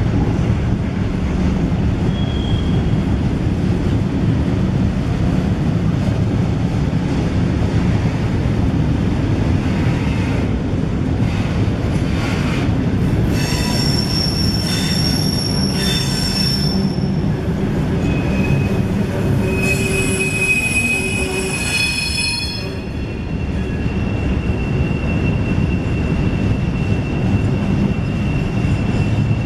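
Loaded gondola cars of a freight pipe train rolling past with a steady, loud rumble of wheels on rail. About halfway through, the wheels squeal on the curve in several high tones at once. Later a single thin squeal holds on.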